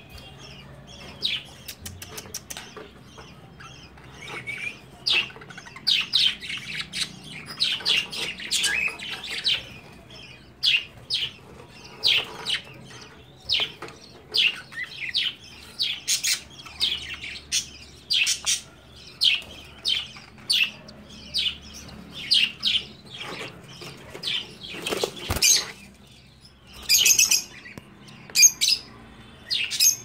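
Newly hatched cockatiel chick peeping from the nest: a steady series of short, high chirps, one or two a second, with a few louder, higher calls near the end. A single knock sounds about 25 seconds in.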